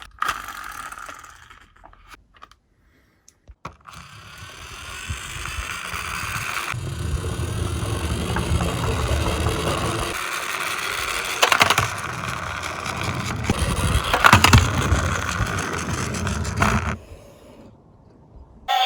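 Tomica die-cast police minicar rolling down a toy slope track, a steady rolling scrape that grows louder, with a few sharp clacks along the way, and stops suddenly near the end.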